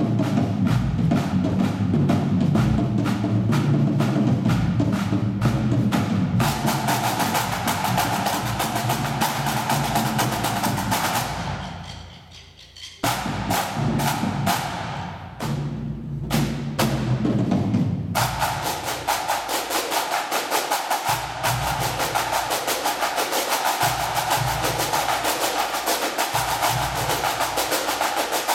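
Pipe band drum corps playing: rapid snare drumming with sharp stick clicks over bass and tenor drums, with a brief dip about twelve seconds in.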